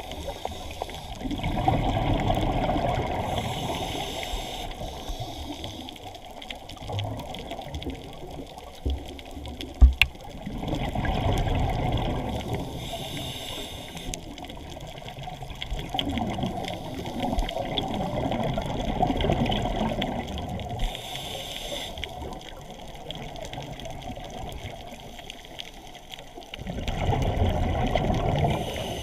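Underwater sound of water rushing and bubbling around the camera, swelling in several surges a few seconds long, with a sharp knock about ten seconds in.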